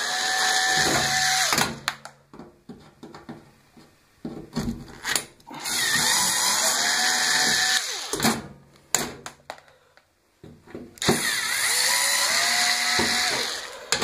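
Power drill-driver backing screws out of a washing machine's rear panel. It runs three times for two to three seconds each, the motor whine climbing and then holding steady, with clicks and knocks of handling between runs.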